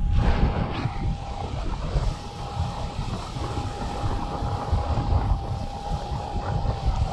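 Wind rushing and buffeting on the microphone of a paraglider in gliding flight, with a steady high tone running through it from the flight instrument's variometer, sounding its sink tone as the glider descends at about 2 to 3 metres a second.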